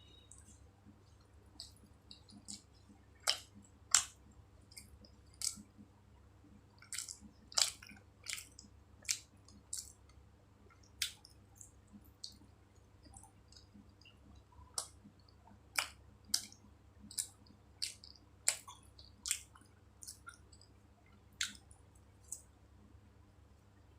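Close-up chewing and wet mouth sounds of someone eating samosa and jalebi: irregular sharp smacks and clicks, a few every couple of seconds, over a faint low hum.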